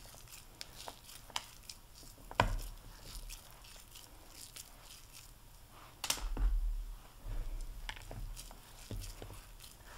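Fingers squeezing and rolling a crumbly pecan mixture into balls, a soft crackle of crumbs with light sticky squishing. A sharp tap comes about two and a half seconds in and a louder bump about six seconds in.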